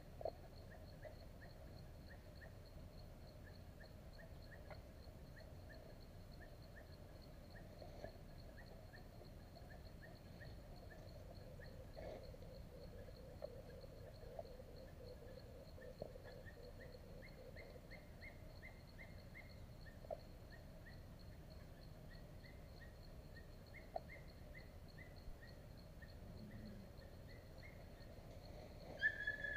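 Faint insect ambience: a steady high-pitched insect whine with soft chirps repeating a few times a second, and a few light clicks and rustles.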